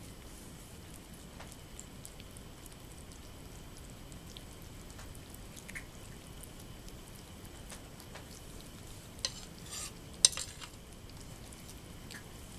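Norwegian Forest Cat kittens eating from plates: faint wet crunching and licking, heard as a stream of small clicks, with two louder clicks near the end.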